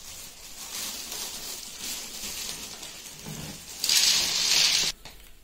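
Plastic bag rustling against a stainless steel pot, then water pouring and splashing out of the tipped pot for about a second near the end, stopping suddenly.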